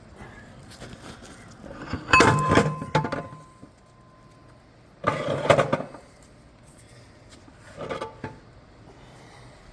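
Metal transmission parts clanking and scraping in three bursts as a 6L80's planetary gear set is pulled out of the case and handled. The first clank leaves a ringing note that hangs for a couple of seconds.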